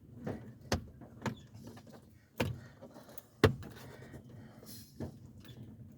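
Plastic dash trim pieces of a 2015 Toyota Tundra being pushed and snapped back into place: about six sharp clicks and knocks, the loudest about three and a half seconds in.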